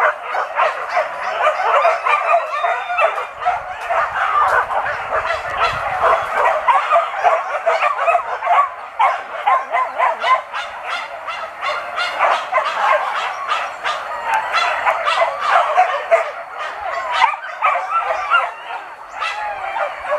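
Hunting dogs yelping and whining without a break, many short high yips crowding over one another.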